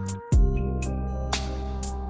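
Electronic background music: a held bass note that changes about a third of a second in, with sharp drum hits over it.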